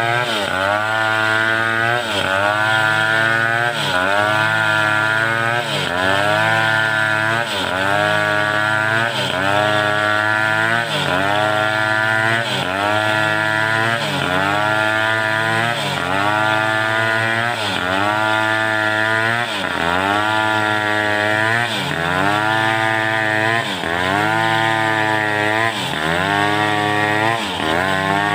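Home-built two-stroke chainsaw cutting lengthwise through mindi wood. The engine runs loud and steady under load, its pitch dipping and climbing back about every second and a half as the chain bogs in the cut and recovers.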